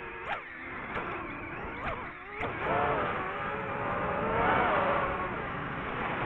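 DJI FPV drone's motors whining, the pitch jumping up sharply a few times in the first couple of seconds, then rising and falling with the throttle.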